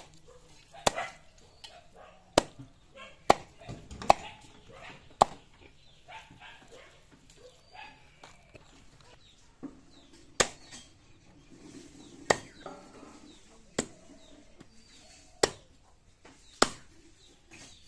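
A large broad-bladed knife chopping raw chicken pieces on a wooden block: about a dozen sharp chops at irregular gaps, with longer pauses in between.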